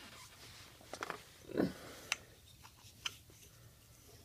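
Quiet handling noise from the Segway's handlebar shaft and base: a few faint clicks and a duller knock about one and a half seconds in.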